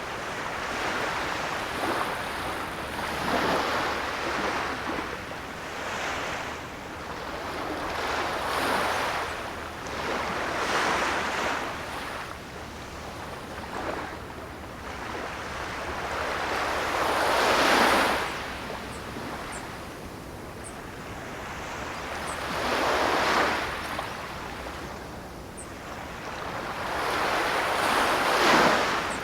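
Ocean surf: waves breaking and washing in as a rushing hiss that swells and falls away every few seconds. The biggest breaks come in the second half.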